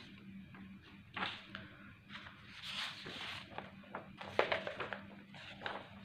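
Sheets of paper being handled and shuffled, rustling in several short, irregular bursts, with a faint steady hum underneath.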